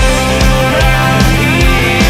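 Hard rock band playing: distorted electric guitar with a long held note over bass and drums, and a steady kick-drum beat of about four a second.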